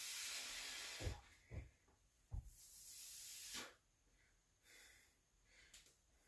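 A person exhaling hard twice, each breath a long hiss lasting about a second, with a few short low thumps between the breaths.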